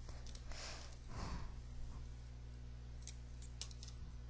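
Two soft breaths or sighs in the first second and a half, then a few faint small clicks, over a steady low hum.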